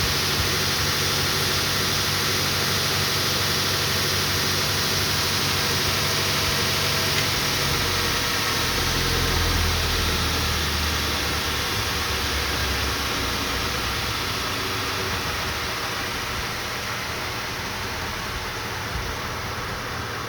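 Kalamazoo 8-inch belt sander running steadily: the belt hissing with a motor hum under it. A low rumble swells about eight seconds in and fades again a few seconds later, and the whole sound slowly gets quieter in the second half.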